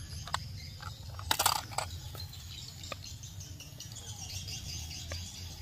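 Handling noise as a plastic toy train car is put down among grass: scattered light clicks and a brief crackly rustle about a second and a half in, over a low steady rumble.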